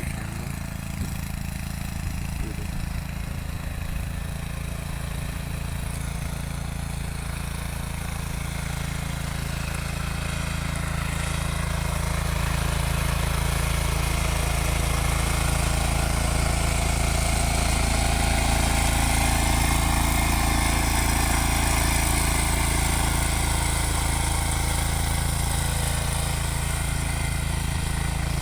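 Mini tractor engine running steadily. It grows gradually louder over the first two-thirds, then eases off slightly.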